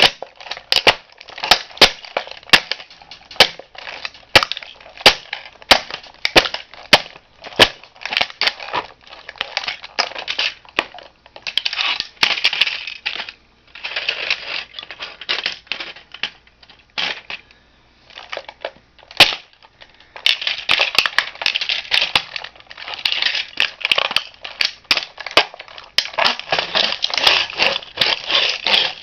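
A toy model car breaking up under a shoe: rapid, sharp cracking and crunching as its body is crushed, with two short lulls midway, the second broken by one loud crack.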